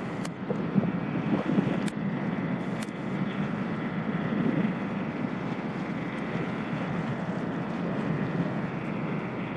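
High-speed waterjet-driven catamaran ferry running past at speed: a steady low drone from its engines and waterjets with a faint high whine, mixed with the rush of its wash and wind on the microphone. A few brief sharp ticks in the first three seconds.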